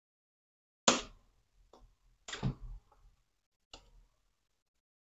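Hard plastic clicks and knocks from handling a laptop's back casing while it is being pried off: one sharp click about a second in, then a few quieter clacks and a last click near the end.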